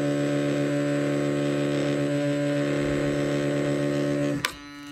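Oral-B iO electric toothbrush motor running with a steady hum, then stopping abruptly with a click about four and a half seconds in.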